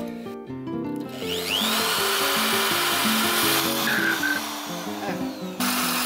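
Cordless drill spinning up with a rising whine about a second and a half in, then grinding a hole into the bottom of a broken earthenware vat. It stops briefly near the end and starts again. Background music plays underneath.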